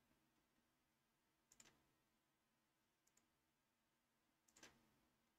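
Near silence with three faint computer-mouse clicks, about a second and a half apart.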